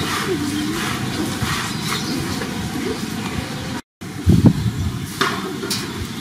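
Steady outdoor background rumble and hiss. It drops out briefly about four seconds in, and a short, loud thump follows soon after.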